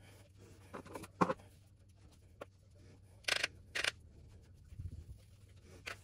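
Makeup brushes sweeping over the skin of the face: a few short, scratchy brush strokes, the two sharpest a little after three seconds in, with small handling knocks between them.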